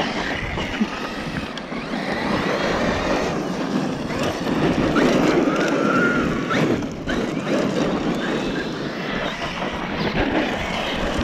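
Brushless electric motors of large RC off-road trucks whining up and down in pitch as the trucks are driven hard over dust and loose stones, with the hiss of tyres on gravel. Wind buffets the microphone throughout.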